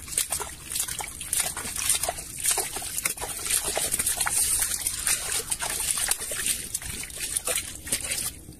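Hands digging and slapping in wet pond mud, with repeated wet squelches and splashes in an irregular run.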